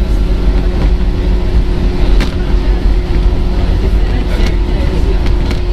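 Running sound heard inside the motor car of a JR East 115 series electric multiple unit: a steady, loud low rumble with a constant hum, broken by a few sharp clicks.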